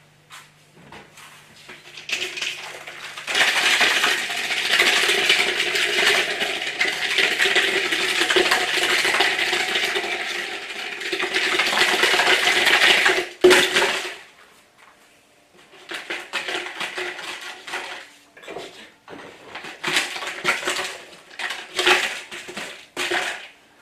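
A plastic bottle with something loose inside, shaken hard in a continuous rattle for about ten seconds that stops suddenly, then pushed across a tiled floor in short, scattered rattles and clicks. It serves as a startle-noise test for a puppy.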